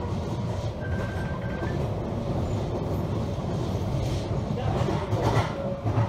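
Interior running noise of a Jubilee line 1996-stock Underground train on an open-air section: a steady low rumble of wheels on rail, with a brief louder burst of noise about five seconds in.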